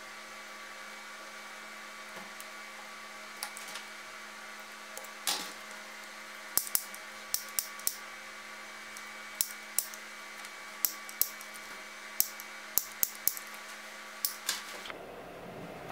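Sharp clicks of a pocket lighter being flicked, about fifteen of them, many in quick pairs, as it is held to the stitching to melt the thread ends. A steady electrical hum underneath throughout.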